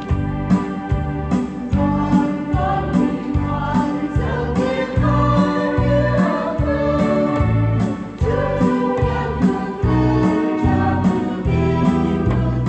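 Church choir singing a Vietnamese Catholic hymn to electric keyboard accompaniment, with a steady beat in the bass.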